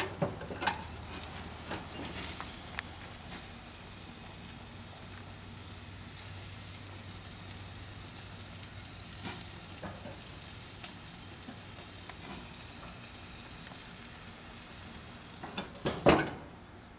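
A steak sizzling steadily on the grates of a stainless four-burner Brinkmann gas grill over the burner flames. A couple of clicks come right at the start, and loud metal clanks come near the end, as the grill lid is shut and the sizzle fades.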